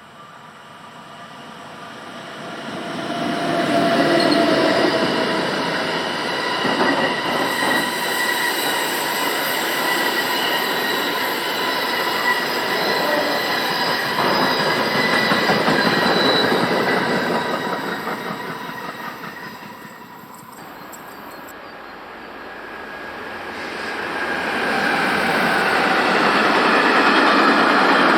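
A train passing with its wheels squealing: several high steady squeal tones over the rail noise, building over the first few seconds and fading about twenty seconds in. Train noise builds again near the end.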